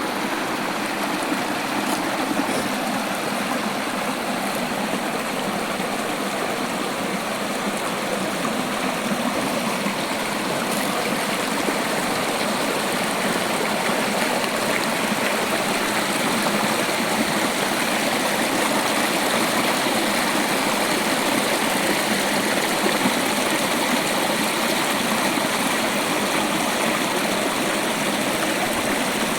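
Running water of a stream: a steady, even rush with no pauses.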